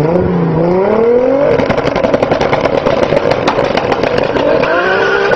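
Toyota Supra's engine and exhaust revving as the car pulls away: the note climbs over about a second and a half, then turns rough and crackling, and settles into a steady higher tone near the end.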